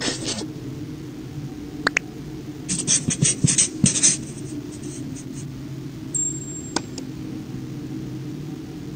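Marker-pen strokes scratching on a whiteboard, a quick run of them about three seconds in, with a whoosh at the start and a couple of single clicks, over a steady low hum.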